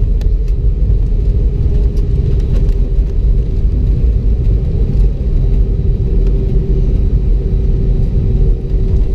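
Airbus A319-100 cabin noise with the aircraft on the ground after landing: a steady, loud low rumble of engines and rolling gear with a steady hum over it, and a few faint clicks.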